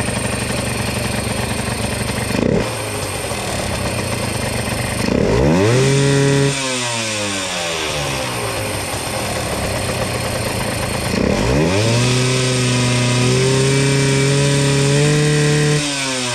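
Yamaha TZM two-stroke motorcycle engine running just after a start, idling and then revved twice. The first rev rises and falls quickly about five seconds in. The second is held higher from about eleven seconds and drops back near the end. The revs are to see whether the freshly repaired power-valve servo responds.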